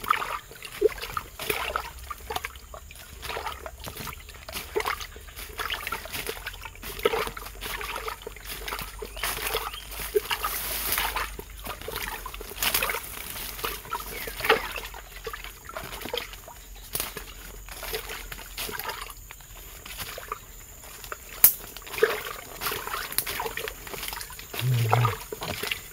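Footsteps crunching through dry leaf litter and brushing past undergrowth: an irregular stream of crackles, snaps and rustles. A short burst of voice comes near the end.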